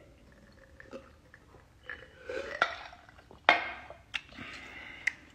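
Drinking from a plastic cup: swallowing sounds, then a handful of sharp clicks and knocks as the cup is handled, the loudest about three and a half seconds in.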